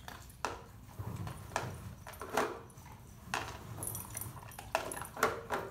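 Dog eating treats out of a small plastic tub: irregular sharp clicks and knocks against the plastic, with a faint jingle of collar tags about four seconds in.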